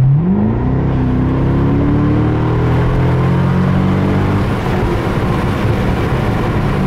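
The 6.0-litre LS2 V8 of a 2007 Chevrolet Corvette C6 (automatic, aftermarket cold air intake) accelerating hard under full throttle, heard from inside the cabin. The engine note rises sharply in the first second and keeps climbing, then drops back about four and a half seconds in and settles to a lower, steady run.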